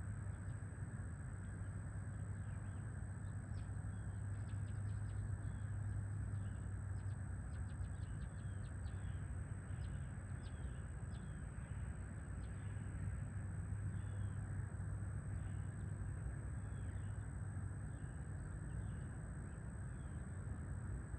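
Birds chirping at sunrise: many short, scattered calls, busiest in the first third, over a steady low hum of outdoor background noise.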